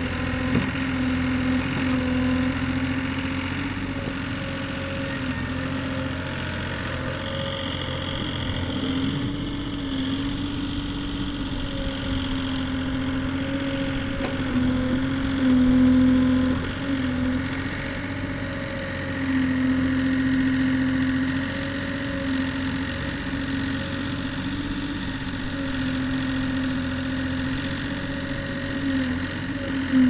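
Yanmar B32 mini excavator's diesel engine running steadily as it digs, its pitch dipping briefly now and then under the digging load and coming back up. It is loudest about halfway through.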